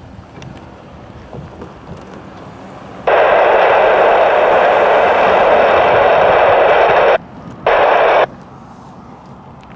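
Loud hissing radio static, as from a railfan's scanner radio, switching on abruptly about three seconds in and cutting off about four seconds later, then a second short burst of static.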